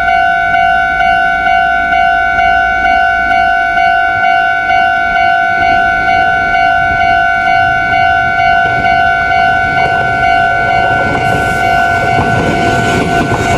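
Japanese railway level-crossing warning bell ringing, an electronic two-tone ding repeating in a quick steady rhythm. From about nine seconds in, the rumble and rail clatter of an approaching train grow beneath it.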